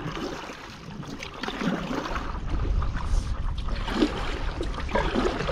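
Wind buffeting the microphone: a low rumble that grows stronger about two seconds in.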